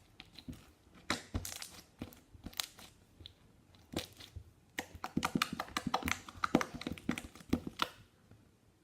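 Clear slime being squeezed and worked by hand, giving an irregular run of sharp clicks and small pops, busiest over the second half.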